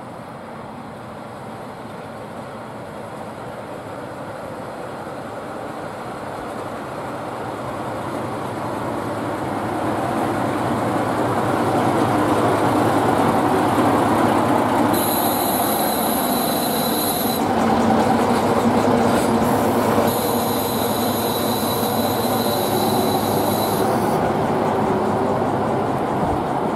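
KiHa 40-series diesel railcar pulling into the platform, its engine and wheel rumble growing louder as it draws near. As it slows to a stop, high-pitched brake squeal comes in two spells, about fifteen seconds in and again about twenty seconds in.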